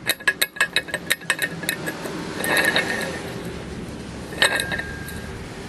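Metal turbocharger parts and tools being handled during disassembly. A quick run of sharp metallic clicks with a slight ring comes first, then scraping and handling noise, and one ringing clink near the end.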